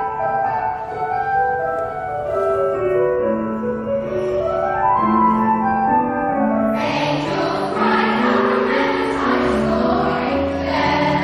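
Background choral music: a choir singing held notes, the sound growing fuller about seven seconds in.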